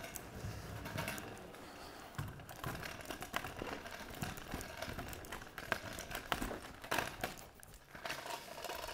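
Kick scooter rolling over stone paving with a low rumble, followed by a run of irregular light taps and clicks.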